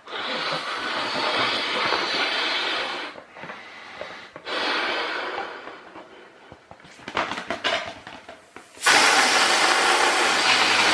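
A toy balloon being blown up by mouth in two long breaths, with some handling clicks, then a loud steady hiss of air rushing out of its neck for about two and a half seconds, cutting off sharply. The escaping air is aimed at the paper fan of a Strandbeest walking model and sets it turning.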